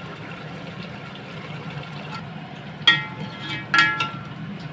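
Steady low rushing of a lit gas stove burner under a cooking pot. About three seconds in and again a second later, cookware is handled: two sharp metal clanks that ring briefly.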